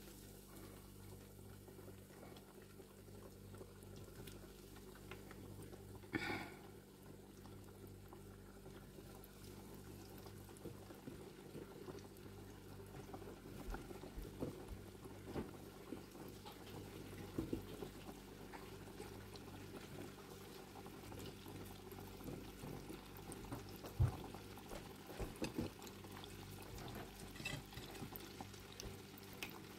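Hot oil bubbling and sizzling steadily in an electric deep fryer as battered pollock fillets fry, over a low steady hum. A few light knocks and clinks come through, the sharpest about 24 seconds in.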